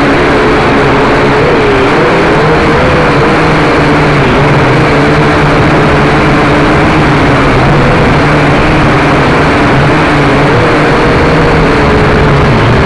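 Akaso X5C quadcopter's small electric motors and propellers running in flight, heard up close from the drone itself: a loud, constant buzz with a whine that wavers up and down in pitch as the throttle changes.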